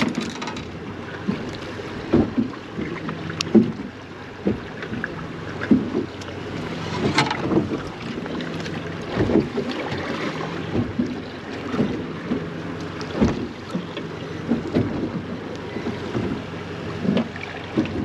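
Choppy water slapping irregularly against a small boat's hull, with wind buffeting the microphone and a faint low steady hum underneath.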